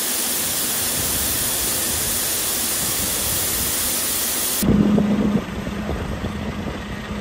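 Shelled corn pouring from a grain bin's side-draw spout into a grain trailer, a steady loud hiss of kernels. About four and a half seconds in it cuts off sharply, leaving a quieter steady low hum.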